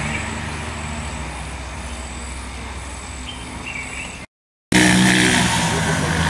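A motor vehicle engine running steadily, as from road traffic. The sound cuts out for about half a second a little past four seconds in, then comes back louder.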